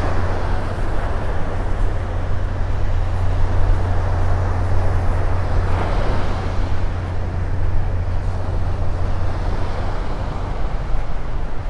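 Wind rumbling on the microphone over the steady wash of surf breaking on the beach, the surf swelling briefly about six seconds in.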